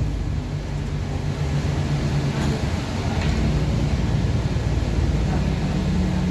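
Diesel engine of a Mercedes-Benz Citaro bus running with a blown exhaust, heard from inside the bus as a steady low drone. The engine note drops right at the start, as if the throttle has been eased off.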